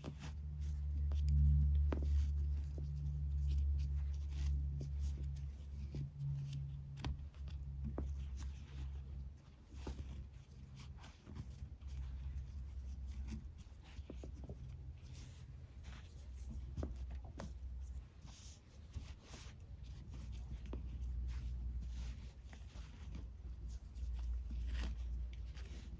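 Nylon paracord rubbing and rustling in short scratches as the cords are handled, threaded and pulled tight into macrame knots, over a steady low hum.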